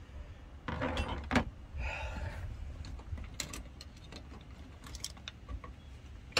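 Hand tools clinking and a fabric tool bag rustling as it is rummaged through, with a few light metallic clicks. A low wind rumble sits on the microphone.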